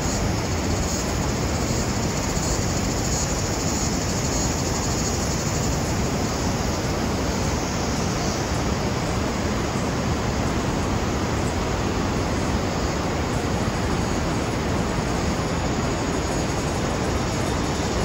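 Steady rushing of a large waterfall: a dense, even noise from deep rumble up to hiss, holding one level throughout.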